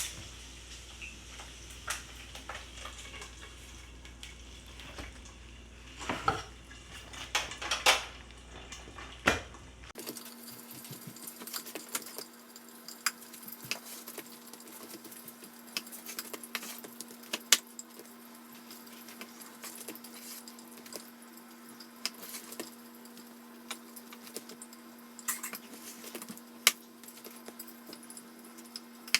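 Kitchen knife cutting raw beef eye of round into steaks on a cutting board, with scattered clicks and knocks of the blade and meat against the board. There is a steady low hum in the first third that stops abruptly, after which a faint steady tone is heard.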